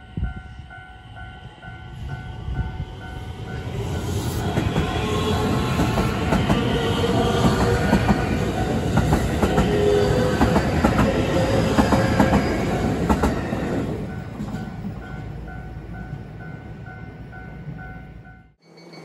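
Train passing over a level crossing. Its running noise swells over a few seconds, stays loud for about ten with rapid wheel clacks, then fades. The crossing's warning bell rings in an even repeating pattern under it.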